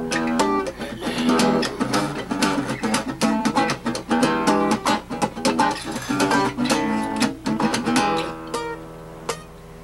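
Acoustic guitar strummed in quick chord strokes, thinning out to a few softer notes near the end.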